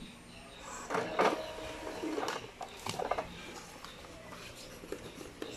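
Light clicks, knocks and rustling as a hand handles the sheet of paper and the cable lying on top of an inkjet printer, the loudest few about a second in.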